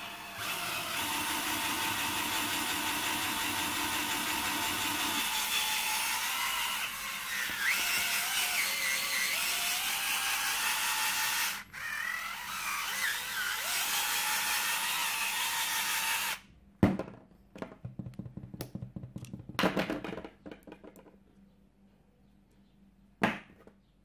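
Cordless drill motor running for about sixteen seconds, its speed wavering in the middle, with a brief stop about twelve seconds in. It then cuts off, followed by a string of clicks and knocks as the metal bit holders and flexible shaft are handled.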